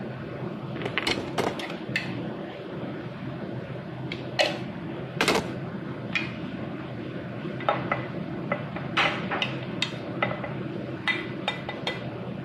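Food cooking in a covered frying pan: a steady simmering noise, with irregular sharp clicks and taps scattered through it.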